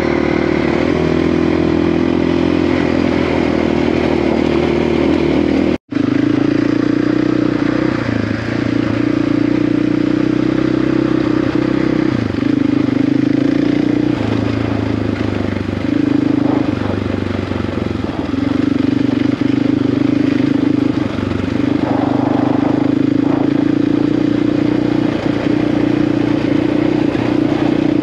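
Single-cylinder 690 dual-sport motorcycle engine running under way at a fairly steady pace, the pitch wavering slightly with small throttle changes. The sound drops out for an instant about six seconds in.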